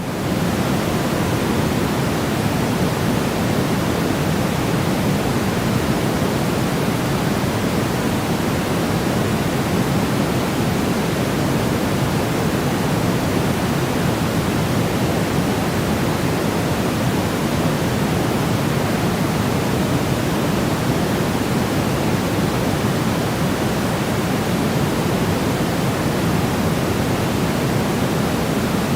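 Steady white noise for soothing a baby: an even, unbroken hiss weighted toward the low end, with no change in level.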